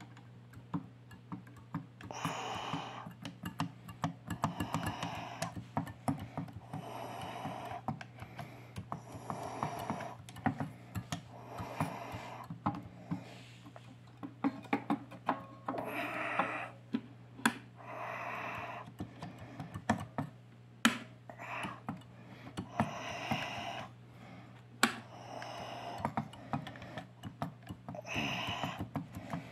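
Keys of a Tivoli electric organ clacking as they are pressed, many quick clicks in uneven runs, over a steady low hum and spells of soft hiss. No notes sound: the organ switches on but does not play.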